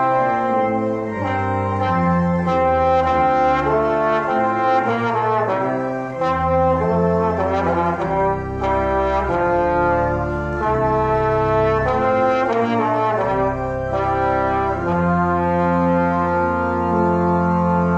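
Trombone and pipe organ playing a hymn verse together, the notes moving in steps over sustained low organ bass notes.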